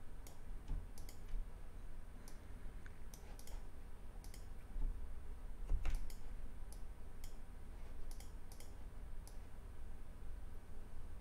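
Computer mouse and keyboard clicks: about two dozen light, irregular clicks over a faint low hum.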